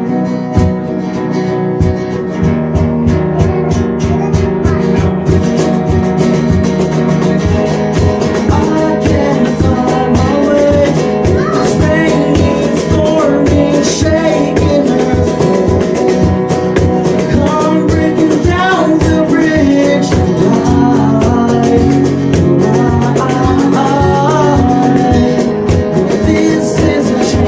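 A band song's instrumental passage: strummed acoustic guitar over a steady beat, with a bending lead melody joining about nine seconds in.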